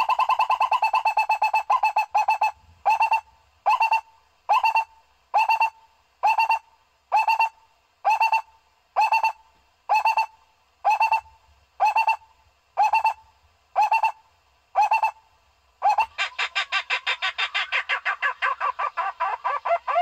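Barbet calls used as a lure track. A fast rattling series comes first. Then single short notes repeat a little more than once a second for about thirteen seconds, and a fast rattling series starts again about sixteen seconds in.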